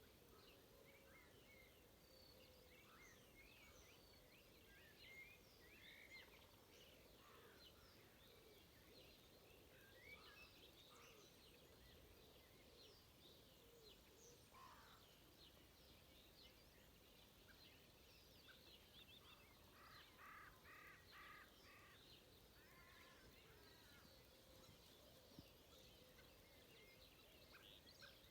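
Faint dawn chorus of many songbirds: overlapping chirps, trills and short phrases throughout. About two-thirds of the way in, one bird gives a run of about five evenly spaced, lower calls.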